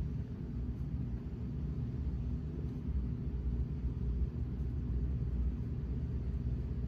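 A 42-inch Gulf Coast Mini Breeze ceiling fan running, heard as a steady low rumble of moving air.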